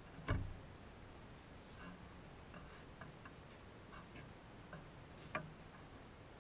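Soft, irregular clicks and taps of hands working yarn strands in finger weaving, with a sharper knock just after the start and another about five seconds in.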